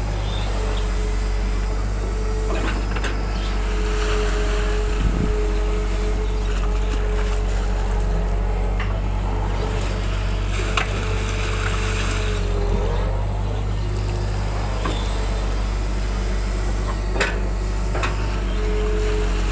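Excavator's diesel engine running steadily, with a hydraulic whine that holds for most of the first thirteen seconds and comes back near the end, and a few sharp knocks from the machine at work.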